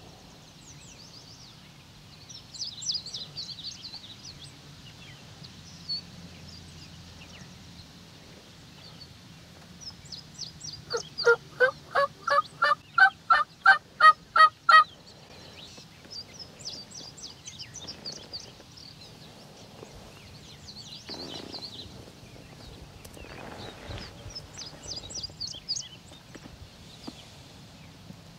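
Wild turkey yelping: a run of about a dozen evenly spaced loud notes lasting about four seconds, growing louder as it goes. Faint songbird chirps come before and after.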